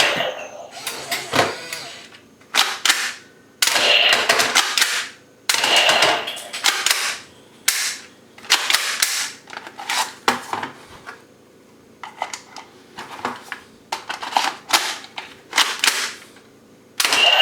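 Toy guns firing: a series of sharp shot sounds and clicks in irregular bursts, some shots trailing a short ringing tail, with brief quiet gaps between.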